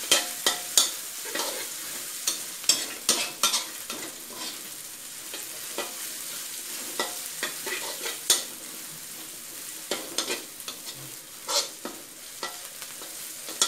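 Metal spatula scraping and knocking irregularly against a steel wok while stir-frying chopped garlic and bird's-eye chilies in hot oil, over a steady sizzle.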